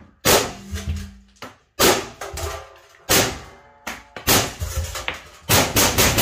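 Milsig FSC paintball carbine firing on compressed air: four separate shots about a second and a half apart, each fading off, then a rapid string of shots about four a second near the end.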